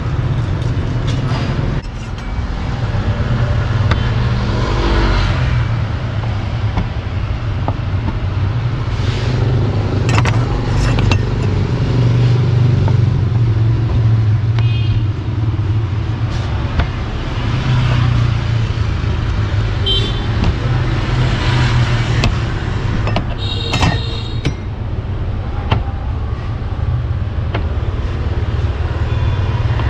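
Steady rumble of street traffic, mostly motorbikes, with a few short high-pitched beeps about two-thirds of the way through and scattered sharp knocks.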